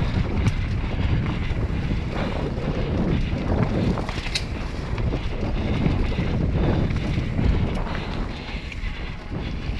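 Wind buffeting an action camera's microphone as a rider descends a dirt forest trail at speed, with a steady low rumble of tyres and rattles over the ground. A single sharp click comes about four seconds in.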